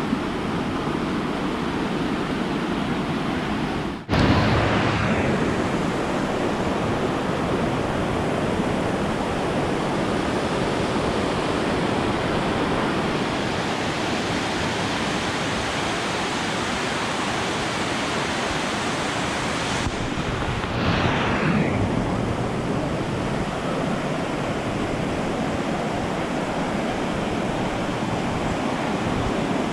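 River water rushing steadily, a dense even roar of flowing water. The sound breaks off for an instant twice, about four seconds in and again about twenty seconds in.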